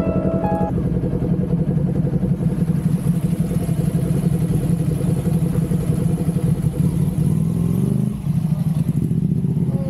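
Kawasaki Ninja 400 motorcycle's parallel-twin engine idling steadily with a quick, even firing beat. The pitch rises briefly about eight seconds in.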